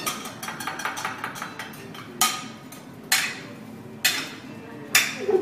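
Metal cooking utensils striking a teppanyaki griddle: quick light clicks and taps at first, then four loud separate metallic strikes over the second half.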